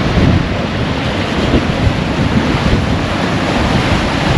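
High wind buffeting the microphone: a loud, steady rush with heavy, fluctuating low rumble from the gusts.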